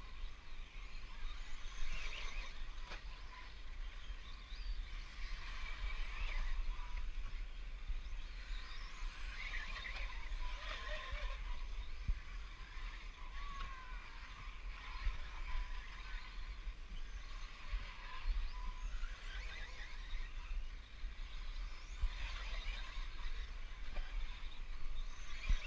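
Several 1/10-scale 4WD electric RC buggies racing on a dirt track, their motors whining and sliding up and down in pitch as they speed up and slow for the corners, over a steady low rumble.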